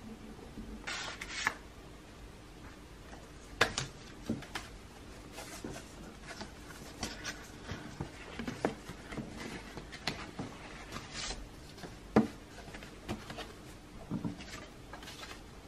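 Paper being handled on a wooden table: a pen scratching briefly on paper, then a paper gift envelope and its paper-cord ornament rustling and sliding, with scattered light taps and a couple of sharper knocks on the tabletop.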